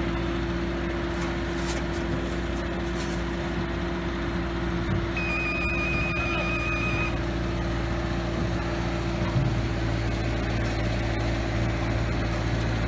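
Diesel engine of a demolition machine running steadily with a constant hum, as it loads wood debris into a dumpster. About five seconds in, a high electronic beep sounds for roughly two seconds, and a few light knocks of debris are heard.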